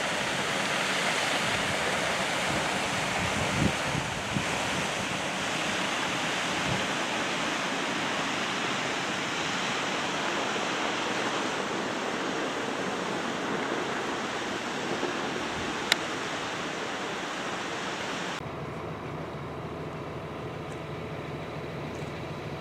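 Dewatering discharge water pouring down an open-pit mine's rock walls in a steady rush. About three-quarters through, it gives way suddenly to a quieter, steady machine hum.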